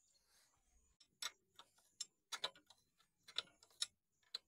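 Faint, irregular metallic clicks and clinks of a spanner working the bolts on a steel disc-plough frame.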